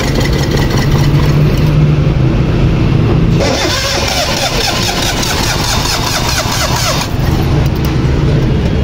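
Suzuki (Maruti) car engine running with a steady low drone. The sound changes abruptly twice partway through.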